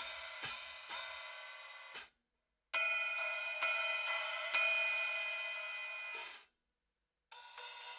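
Bosphorus Gold cymbals struck with a stick about twice a second, each hit left to ring, then choked off short about two seconds in. After a brief silence a second run of about five ringing strikes is choked around six seconds in. Near the end another cymbal starts up with quicker strokes.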